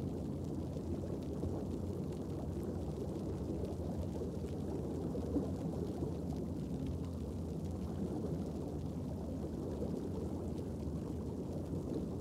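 Underwater ambient sound on a coral reef, picked up through a camera's underwater housing: a steady low rumble with faint scattered crackle.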